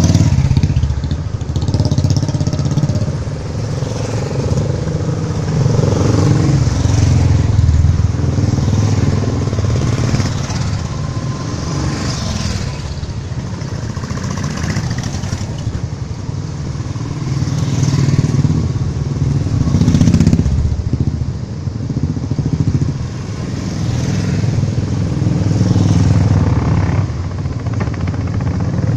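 A line of Royal Enfield Bullet motorcycles passing one after another, their single-cylinder engines running. The sound swells and fades about six times as each bike goes by.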